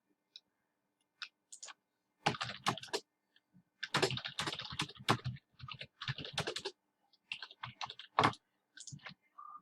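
Typing on a computer keyboard in several quick bursts of key clicks.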